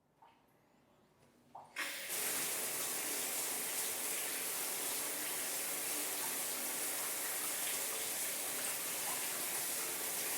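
Shower water comes on about two seconds in, after a couple of faint clicks, and then sprays steadily.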